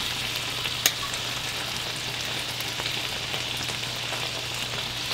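Pieces of garlic-teriyaki-marinated shark meat sizzling steadily in a hot pan, with a single sharp click about a second in.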